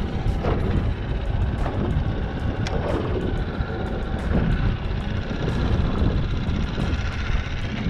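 Wind buffeting the microphone in a small open boat on choppy water: a steady low rumble.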